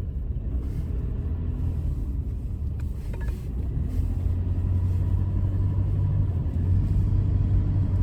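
Car on the move: a steady low rumble of road and engine noise, a little louder from about halfway through.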